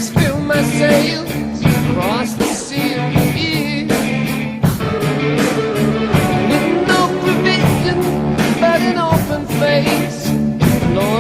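Slow rock music with a lead electric guitar playing bending, sustained notes over drums and bass.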